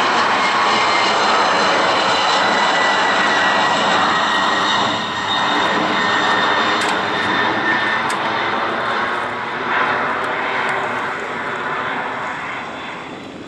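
Boeing 767 twin-jet airliner climbing away after takeoff: its engines make a loud, steady jet roar with a faint whine on top. The sound fades over the second half as the aircraft draws away.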